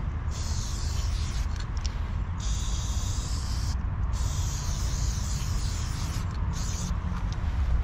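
Aerosol spray paint can spraying in several hissing passes of a second or two each, with short breaks between them.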